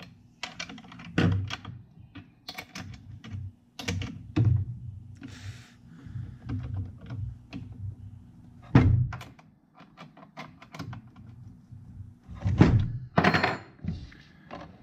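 Chainsaw gear being handled: a run of clicks and knocks with several heavier thunks, and a short hiss about five seconds in.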